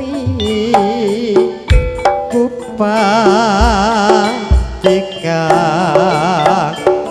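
Live campursari band music: a melody line with a heavy, wavering vibrato over stepped instrumental notes, punctuated by a few deep drum strokes.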